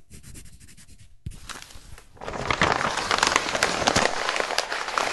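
Paper crinkling and crackling: rapid faint ticks at first, then a dense, louder crackle full of sharp clicks from about two seconds in.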